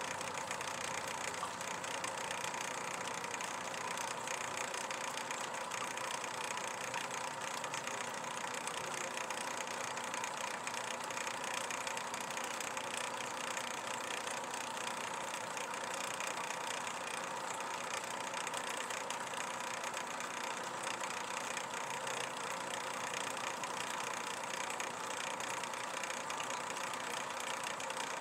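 Steady mechanical hum with a faint whine held at one pitch, like an engine or machine running at idle.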